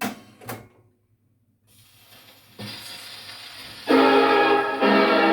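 Two clicks, then the hiss of a steel needle running in the groove of a shellac 78 on an HMV 163 acoustic gramophone, and about four seconds in the dance band recording starts playing loudly.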